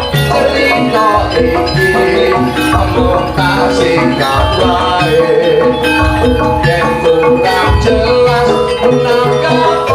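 Loud live jaranan (kuda lumping) gamelan music, with struck metallophones carrying the melody over drum strokes.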